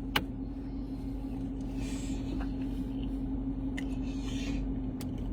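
Steady hum of a car interior with one constant droning tone, a sharp click just after the start, and a few faint clicks and soft rustles later.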